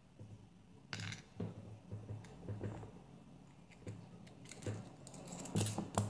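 Small metal clicks and light scraping from handling a padlock as its brass lock cylinder is worked out of the red aluminium body. A few sharp separate clicks, with a short cluster near the end.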